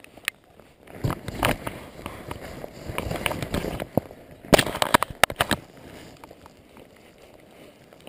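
Close-up handling noise from a rain jacket and fishing gear: rustling for a few seconds, then a cluster of sharp clicks and knocks about halfway through.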